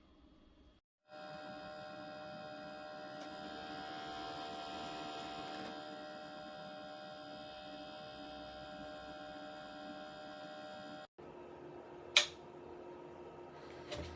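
Ultrasonic cool-mist humidifier running with a steady electrical hum of several even tones. The hum stops suddenly about eleven seconds in, leaving a fainter, lower hum broken by two sharp clicks near the end.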